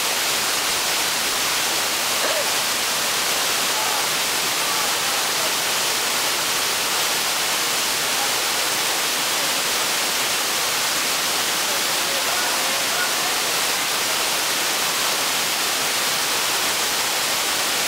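Waterfall pouring down onto rock, a steady, unchanging rush of water.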